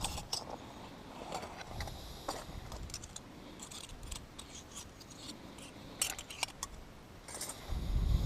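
Scattered light clicks, snips and rustles of small objects being handled, with a louder rustling bump near the end.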